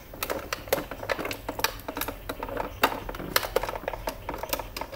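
Irregular small clicks and taps of a VGA cable connector being pushed and worked into the VGA port on the back of a computer monitor.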